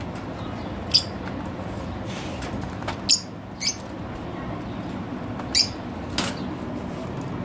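Lovebird giving five short, sharp, high-pitched chirps spread over several seconds, over a steady low hum.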